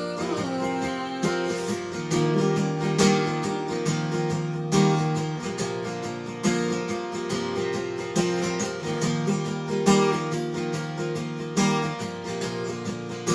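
Instrumental break of a country song: acoustic guitar strumming chords in a steady rhythm, with a strong accented strum about every second and three-quarters.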